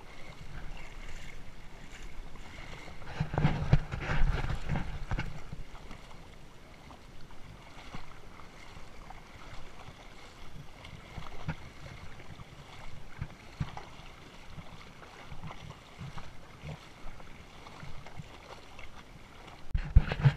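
Shallow seawater splashing and sloshing close by as it is waded through, in an uneven run of splashes. The splashing is loudest about four seconds in and again near the end.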